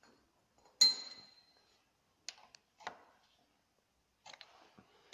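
Hands handling metal parts and tools on a motorcycle engine: one sharp metallic clink with a short ring about a second in, then a few soft clicks and taps.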